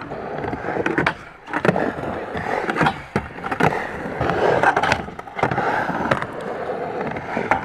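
Skateboard wheels rolling over smooth skatepark concrete, with a number of sharp clacks as the board and trucks hit the surface.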